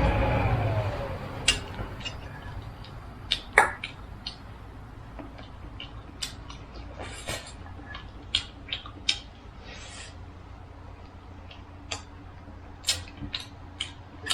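A passing vehicle fades away in the first second with a falling tone, then scattered small clicks and knocks sound over a steady low hum.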